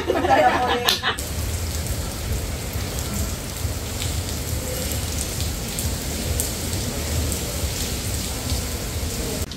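Steady rain falling, an even hiss with scattered faint drop ticks, after a brief voice in the first second.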